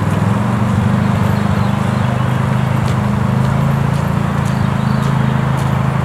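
Vehicle engine running close by: a loud, low, steady throb with a rapid even pulse.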